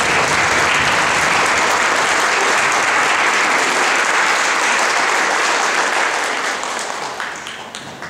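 Audience applause welcoming the conductor, a dense steady clapping that fades away over the last two seconds.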